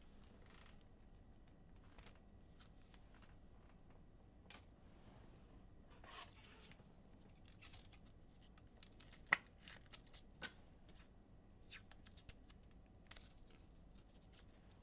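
Near silence with faint, scattered clicks and scrapes of trading cards and pack wrappers being handled, a few sharper ticks in the second half.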